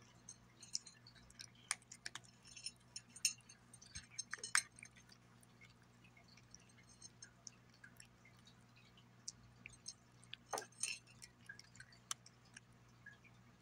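Cat eating dry kibble from a glass plate: irregular crunching, with sharp clinks of kibble and teeth against the glass. The clinks come thickest in the first five seconds and again about ten seconds in.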